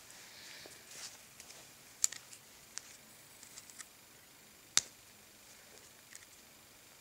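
Leatherman Juice Xe6 multitool being handled, its folding tools clicking: a sharp click about two seconds in, a louder one near five seconds, and a few lighter ticks between.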